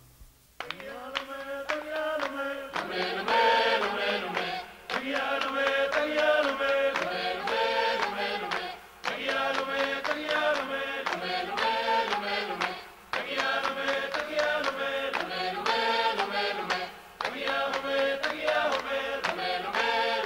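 Polynesian group chant from a Tahitian revue recording: voices chanting together in phrases of about four seconds with short breaks, over sharp percussion strikes. It starts about half a second in, after a brief silence between tracks.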